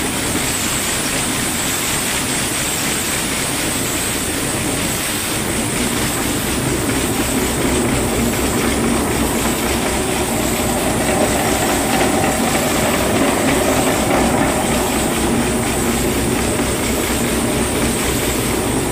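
Ashok Leyland 370 diesel engine running steadily with an even, rapid clatter, just restarted after its fuel-supply fault was fixed with a new filter and the air bled from the lines.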